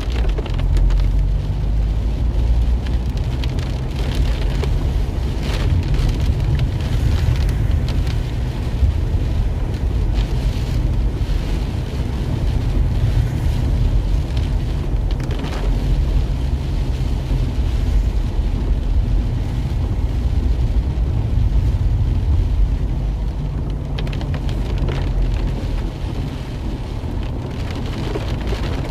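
Heavy rain pattering on a car's windshield and roof, over the steady low rumble of the car and its tyres on a wet road, heard from inside the cabin.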